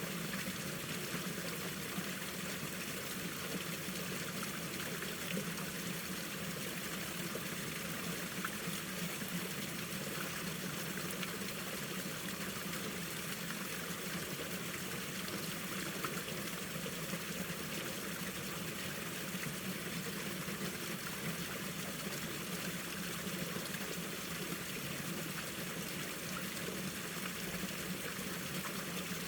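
Mountain stream running steadily over rocks, a continuous rushing and trickling of water.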